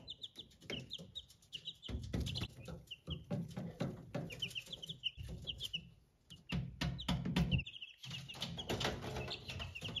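Young Ameraucana chicks peeping in quick runs of short high notes, with rustling and knocks underneath.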